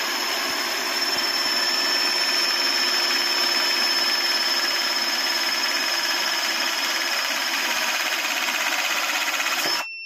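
Jainson Jupiter-400 battery-powered hydraulic crimping tool running its motor and pump steadily for nearly ten seconds with a high, even whine, pressing a 300 sq mm aluminium terminal. The run cuts off suddenly near the end and a short beep follows as the crimp finishes.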